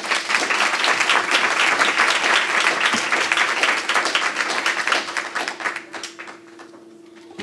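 Audience applauding, starting all at once and dying away about six seconds in.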